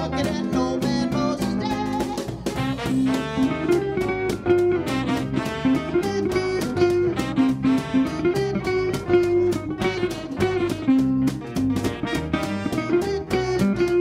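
Electric guitar playing an instrumental passage of quick plucked notes over a moving lower line.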